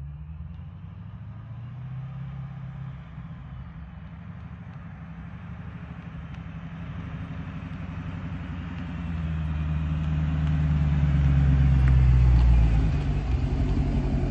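2016 Dodge Challenger Hellcat's supercharged 6.2-litre Hemi V8 running at low speed as the car rolls slowly closer and passes by. It is a deep engine note that grows steadily louder, peaks about twelve seconds in and then drops off a little.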